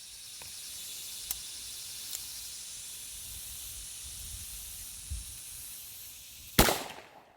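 A single revolver shot, a .357 Magnum round fired at a padlock target, cracking loudly near the end over a steady high hiss.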